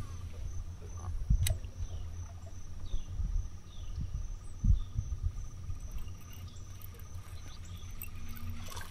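Insects trilling steadily, a fine continuous pulsing chirr, over a low rumble, with a single sharp click about a second and a half in.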